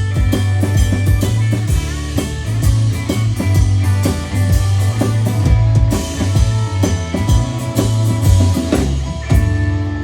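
Live band playing an instrumental passage with drum kit, heavy bass and guitar. Near the end the drums stop, leaving a held, ringing chord as the song finishes.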